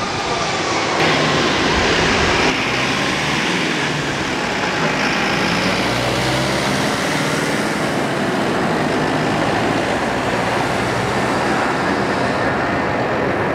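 Twin jet engines of an Airbus A330-300 airliner running at high power on the takeoff roll: a loud, steady jet noise with a low hum beneath it. The sound shifts abruptly twice in the first few seconds.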